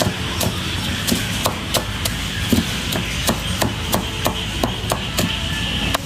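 Garlic being minced with a knife on a cutting board: quick, somewhat irregular chops at about three a second.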